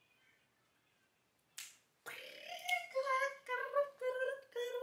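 A single finger snap, then from about two seconds in a sung melody with held notes and short upward slides.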